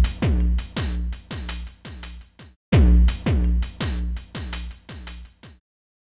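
Electronic outro music: a steady run of deep kick drums, each dropping in pitch, about three a second, with crisp ticks on top. The pattern breaks off for a moment about two and a half seconds in, starts again, and cuts off near the end.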